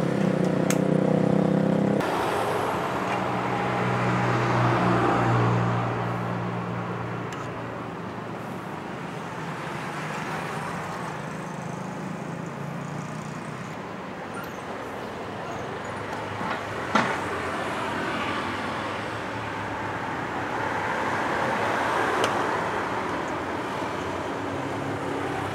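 Road traffic going by, swelling and fading twice as vehicles pass, with a low engine hum early on. A single sharp click about seventeen seconds in, from the camera gear being handled.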